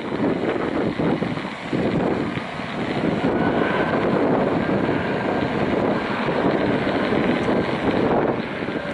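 Distant roar of an Airbus A320's jet engines as the airliner rolls at speed along the runway, a steady rushing noise with a faint high whine about halfway through.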